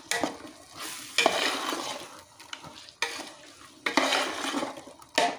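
Chicken with a green coriander-mint-chilli paste sizzling in oil as it is stirred in the pot, with scraping strokes every second or two. The masala is being fried until its raw smell cooks off.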